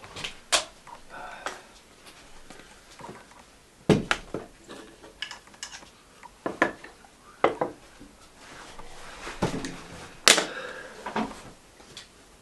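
Hard objects being handled and set down: about a dozen irregular knocks and clinks, some sharp, like gear or dishes being moved about.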